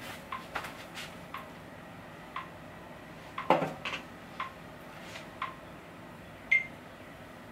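Light clicks and clinks of small hard objects, roughly one a second, several with a brief high ring, and one louder knock about three and a half seconds in.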